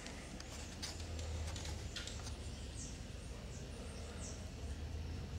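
Faint background sound: a steady low rumble with scattered light clicks and a couple of short, high, falling chirps.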